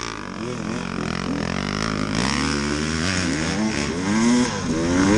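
KTM 300 two-stroke dirt bike engine revving as it is ridden, its pitch rising and falling repeatedly with the throttle, with the strongest rises about four and five seconds in.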